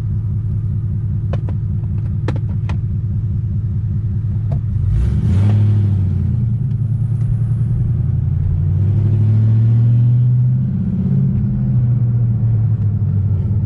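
Car engine idling, with a few sharp clicks early on. About five seconds in it is revved up, eases off, and is revved again for a couple of seconds near ten seconds.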